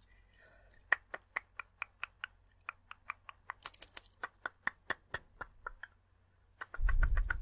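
Close-miked tongue clicking: a quick, even run of sharp wet clicks, about five a second. Near the end a louder burst with a deep rumble on the microphone comes in, with clicks still going through it.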